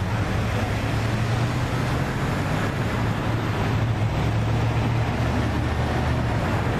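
Steady road traffic with a low, even engine hum, and wind rumbling on the microphone.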